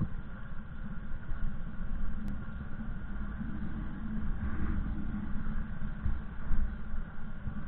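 Small motorcycle engine running at low road speed, a steady low drone.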